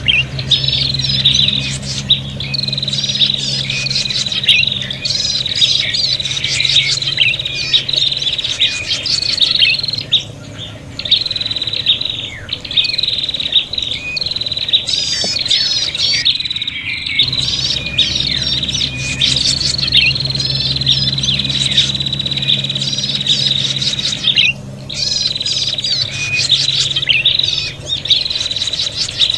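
Prinia (prenjak) calling agitatedly in a dense, unbroken series of sharp chirps and rapid trills: excited territorial fighting calls, used to lure other prinias.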